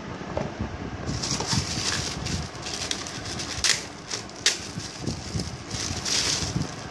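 Clear plastic bag crinkling and rustling as it is handled and pulled open, with a couple of sharp clicks near the middle.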